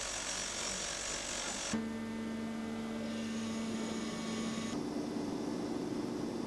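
Steady machinery hum and hiss in a factory hall, with a low drone; the sound changes abruptly twice, about two seconds in and again near the end.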